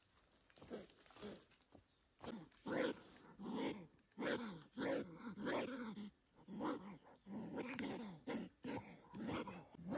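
An animal giving repeated short pitched calls, about one or two a second, many falling in pitch, starting about two seconds in.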